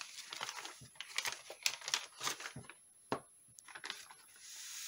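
A sheet of paper rustling and crinkling in the hands as it is lifted and bent into a funnel, with loose embossing powder sliding across it; a soft steady hiss swells near the end.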